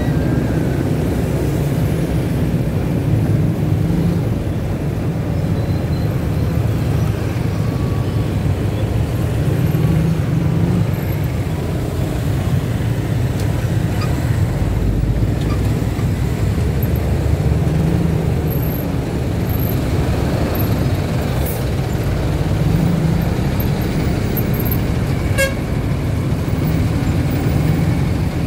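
Steady low rumble of a motorcycle engine and road noise, heard from the rider's seat while crawling through heavy traffic of motorcycles, cars and buses.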